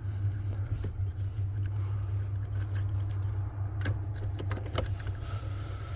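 A steady low hum with a few faint, short clicks and light rattles of small metal parts and tools being handled while the ignition switch is worked loose from the steering column.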